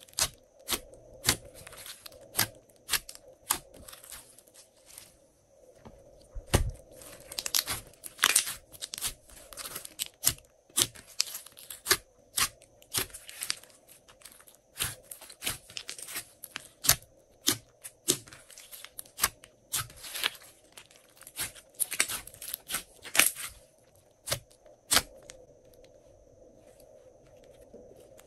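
Pink glossy slime being squeezed, pressed and stretched by hand, giving irregular sticky clicks and crackling pops, with a quieter stretch near the end.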